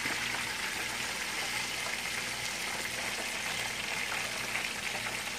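Chicken wings deep-frying in a pot of hot oil: a steady sizzle.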